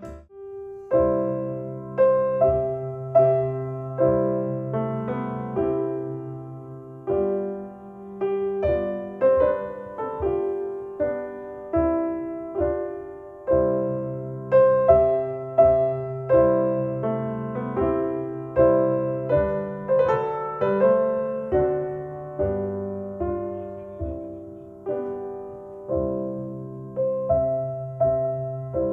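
Solo piano music played back over Paradigm Persona 7F hi-fi loudspeakers driven by an Accuphase E-380 integrated amplifier. The piece starts right at the beginning, with struck notes ringing and fading over held bass notes.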